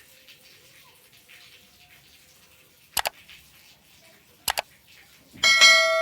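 Two quick double clicks about a second and a half apart, then a metallic clang, the loudest sound, that rings on with several clear tones before fading.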